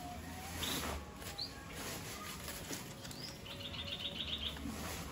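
Small birds chirping: a few short high chirps and, a little past halfway, a quick trill lasting about a second. A brief rustle sounds about a second in.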